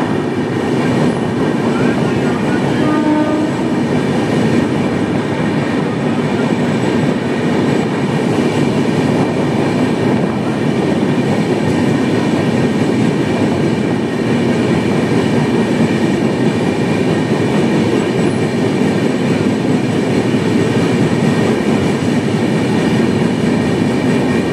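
Indian express passenger train running along the track, a loud, steady rumble of wheels on rails.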